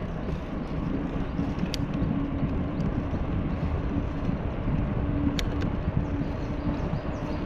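Wind buffeting the microphone of a camera mounted on a moving bicycle, over a steady rumble of rolling noise. A faint steady hum runs under it from about a second in, and there are two sharp clicks, one near the start and one past the middle.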